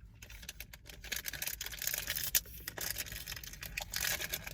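Plastic snack wrapper crinkling and crackling as it is handled, a dense run of small crackles that grows louder about a second in.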